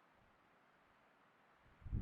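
Nearly quiet background with a faint steady hiss, then a brief low rumble near the end.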